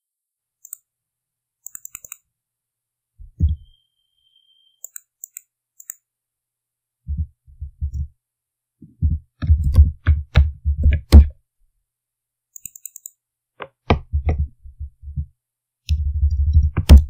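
Computer keyboard typing in quick bursts of dull key thuds, with pauses between bursts and a few faint clicks in the gaps.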